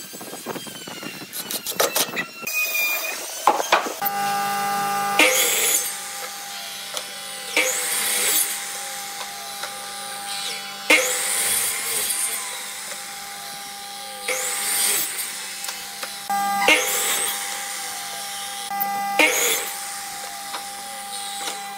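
A cordless impact driver rattling briefly as it drives screws into wood, then a compound miter saw running with a steady motor whine, its blade cutting through a wooden board several times, a loud surge at each cut.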